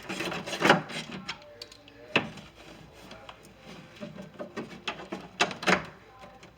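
Scattered clicks and knocks of hand tools and metal door parts being worked inside a pickup's door: the loudest knock comes a little under a second in, a sharp click about two seconds in, and two more knocks near the end.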